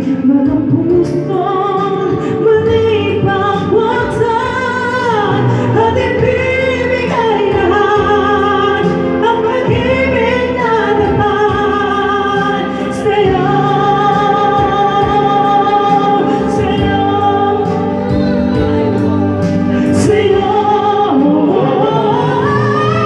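A karaoke duet: live voices singing into a microphone over a recorded backing track, amplified through the bar's PA.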